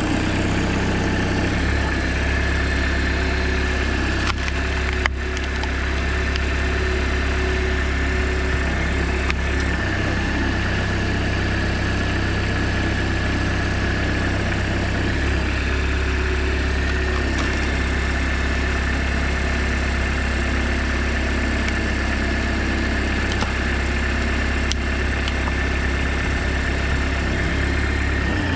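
A homemade tractor's engine running steadily and driving the hydraulics of a tractor-mounted log splitter while the ram pushes a log onto the splitting wedge. A steady high whine sits over the engine note, and a single sharp click comes about five seconds in.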